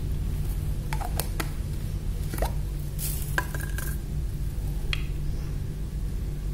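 Light clicks and knocks as a small plastic graduated cylinder is handled and set down on a concrete floor, one brief ringing tap among them, over a steady low hum.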